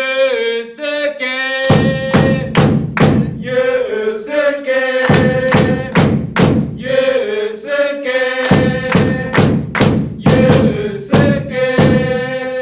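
Football supporters' player chant: a short melody repeated several times, with bass-drum beats coming in under it about two seconds in.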